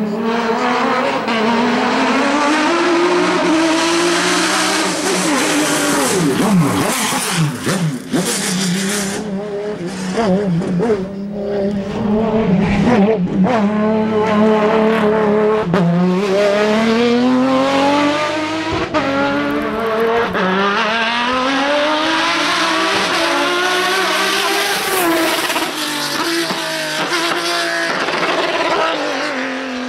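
Ferrari 550 GT's V12 racing uphill at high revs. Its pitch climbs through each gear and drops sharply at the shifts, and there are falling, lower-revving stretches where it brakes and changes down for the bends.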